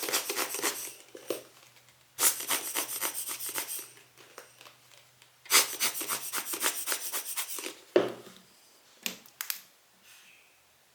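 A glass lens element being cleaned: three bursts of quick scratchy strokes, each a second or two long, then a sharp tap and two short taps near the end.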